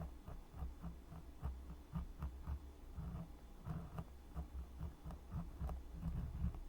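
Ear-cleaning tool scraping and rubbing in a microphone's ear, close and muffled, with irregular soft thumps and faint scratchy clicks several times a second.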